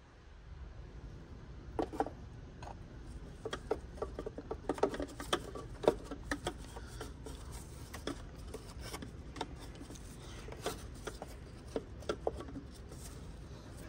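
Cartridge oil filter and its plastic housing cap being fitted back onto a Hyundai Avante AD diesel engine by gloved hand: scattered light clicks, knocks and rubbing of plastic parts, irregular rather than rhythmic.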